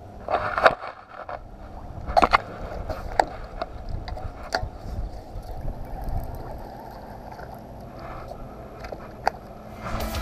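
Fishing rods and tackle being handled in a small boat: scattered sharp clicks and knocks against the hull, over a low background rumble.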